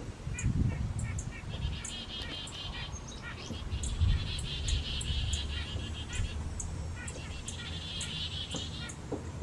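Small songbirds calling: three rapid trills, each lasting one to two seconds, over a steady series of short high chips about twice a second, with low wind rumble on the microphone.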